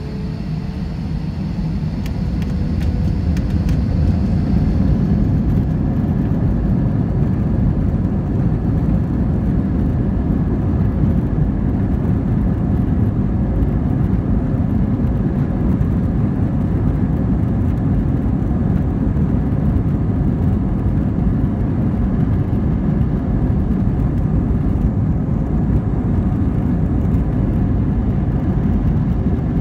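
Inside the cabin of an Airbus A320, the jet engines spool up over the first five or six seconds, with a faint rising whine. Then a steady, loud rumble of engine and runway noise holds as power is set for takeoff.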